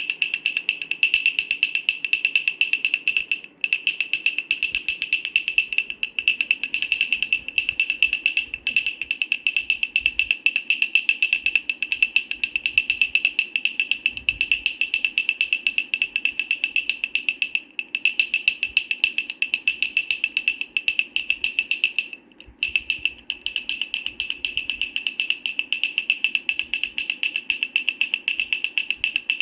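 Wooden baby rattle shaken steadily, a dense run of rapid clicks, broken by a few brief pauses, the longest about two-thirds of the way through.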